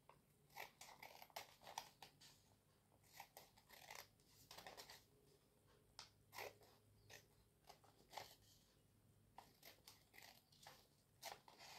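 Small scissors snipping a row of cuts into folded green paper: faint, irregular snips, about one or two a second.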